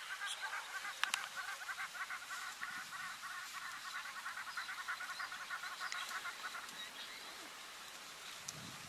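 African wild dog pack twittering: a rapid, high-pitched, bird-like chatter of many overlapping calls, the excited call of the pack on the move, which dies away about seven seconds in. A couple of sharp clicks about a second in.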